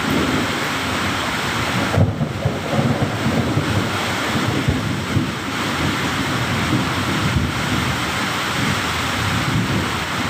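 Thunderstorm: heavy rain falling in a steady rush, with uneven low rumbling of thunder underneath.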